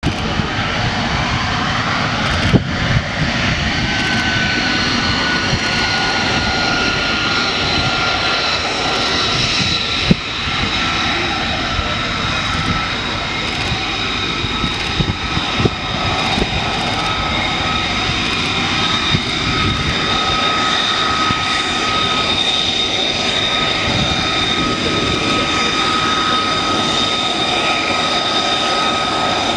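Lockheed Martin F-35B Lightning II's F135 turbofan engine running, a loud steady jet noise with a high whine on top that dips slightly in pitch early on and then holds.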